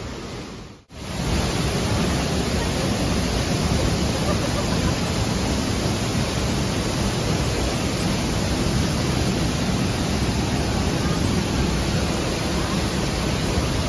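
Rushing white water of a fast stream cascading into a rocky pool: a loud, steady rush. It starts abruptly about a second in, after a short, quieter stretch of outdoor hiss.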